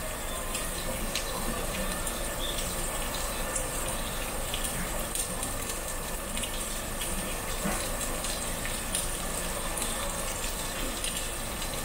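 Thick slabs of pork belly sizzling on a charcoal grill grate: a steady hiss with scattered small crackling pops as the fat renders.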